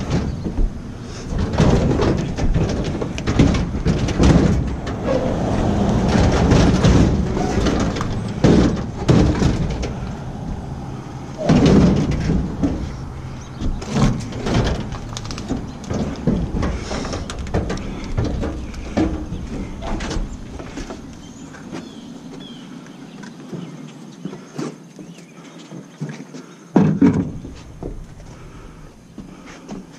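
Repeated knocks and bangs of sheet-metal appliances (discarded dryers and a refrigerator) being handled and loaded for scrap, over a low rumble. The banging thins out after about twenty seconds, with one heavy thump near the end.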